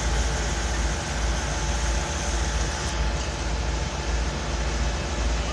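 Steady low rumble of vehicle engines and street noise, with no distinct events.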